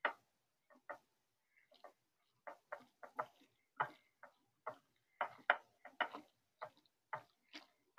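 Spatula knocking and scraping against a glass dish while mixing chicken salad: a string of short, irregular clicks, two or three a second.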